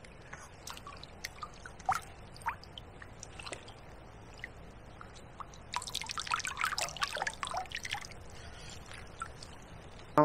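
Water dripping and small splashes from a landing net held in a river margin as a chub is released. A denser flurry of splashing comes about six seconds in as the fish swims out.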